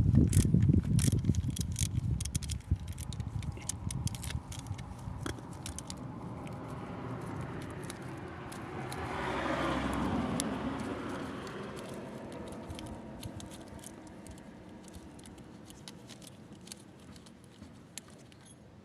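Metal clicks and scrapes from hand work on a car starter motor, many in quick succession at first and thinning out. About eight seconds in, a noise swells, peaks and fades over a few seconds.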